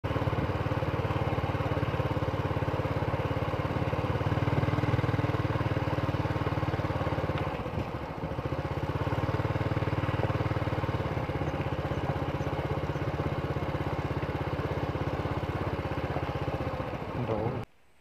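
Small motorcycle engine running steadily while riding along a dirt track, its note dipping briefly about halfway through before picking up again. It cuts off suddenly near the end.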